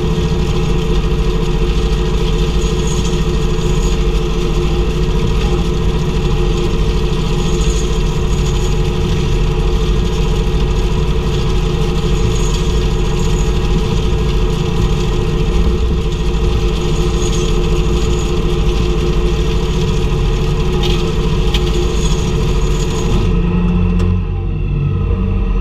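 Tractor engine running steadily under load while pulling a working round baler, with a faint high chirp about every five seconds. Near the end the hiss drops away and the sound changes.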